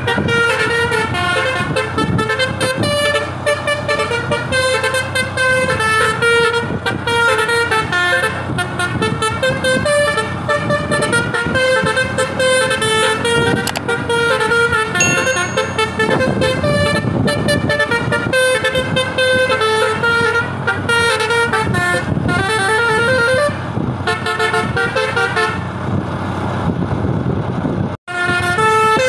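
Basuri V3 telolet horn on a bus, its top-mounted trumpets playing a fast melody of stepped notes. The tune thins out a little before the end, cuts off sharply for an instant, then starts again.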